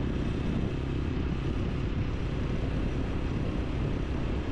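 Motorcycle engine running steadily at cruising speed, with wind and road noise, heard from on the bike while riding.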